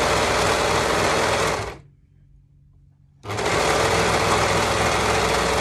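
Overlocker (serger) running at full speed, noisy, as it stitches two layers of interlining together with its cutter on. It stops just before two seconds in, stays quiet for about a second and a half, then starts up again and runs on.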